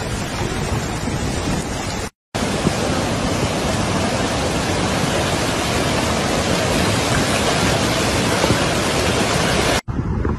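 Flash-flood torrent of muddy water rushing past, a steady loud rush that breaks off for a moment about two seconds in. Near the end it gives way to wind buffeting the microphone.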